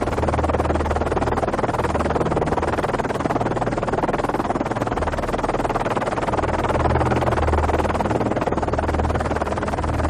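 Electronic background music led by synthesizer, a dense wash of sound over a low bass drone.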